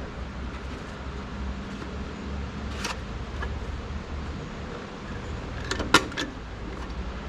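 Hand pop-rivet tool setting eighth-inch pop rivets: a sharp click about three seconds in and a quick cluster of sharp snaps around six seconds, over a steady low hum.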